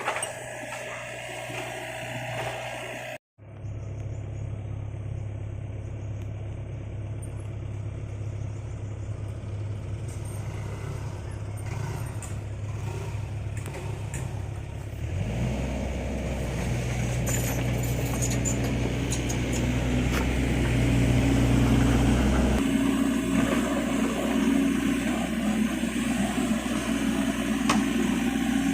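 Engine of heavy machinery running steadily, with a brief cut to silence about three seconds in. About halfway through it grows louder and deeper, then shifts again near the end.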